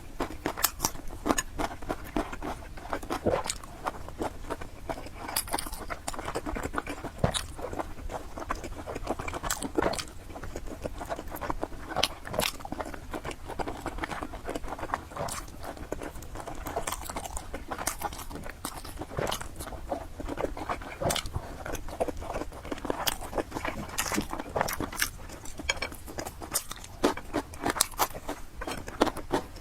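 Close-miked chewing and biting of food, with many sharp, irregular mouth clicks and occasional crunches.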